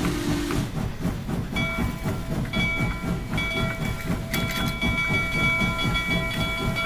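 Mini train horn tooting three short times, then one long held toot from about four seconds in, all at one steady pitch. Underneath it the train's running makes a continuous fast rhythmic clatter.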